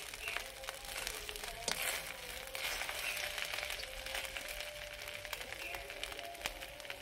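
Metal spoon scraping and clicking against an iron kadhai as cooked sweet rice is stirred, over a faint crackling hiss.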